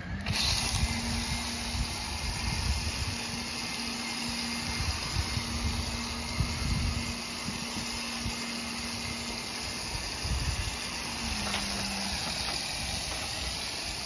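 Coil-cleaner foam hissing steadily from a hose-fed foam sprayer onto an air-conditioner condenser coil, over a steady machine hum that drops slightly in pitch about eleven seconds in.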